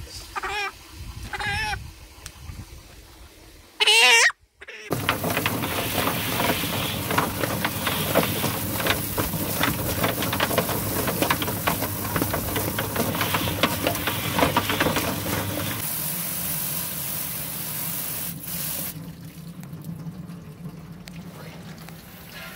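Drum-type chicken plucker spinning, with water from a hose spray nozzle splashing into the drum: a loud, dense wash of noise full of rapid knocks, which eases off near the end. It is preceded by a few short warbling tones and one loud, brief warbling burst.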